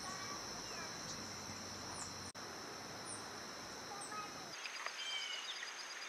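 Natural outdoor ambience: a steady high-pitched insect drone, which gives way about four and a half seconds in to a rapid pulsing insect chirp, with a few faint short bird chirps.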